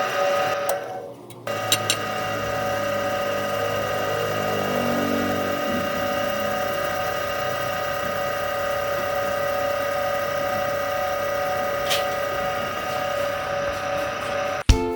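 Small electric power tool motor running with a steady whine; it drops out briefly about a second in, with a few sharp clicks, and music comes in at the very end.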